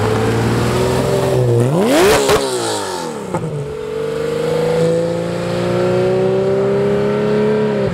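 Porsche 911 GT3 flat-six engine revving as the car pulls away. About two seconds in, one sharp rev climbs in pitch and falls back, then a steady engine note rises slowly as the car accelerates off.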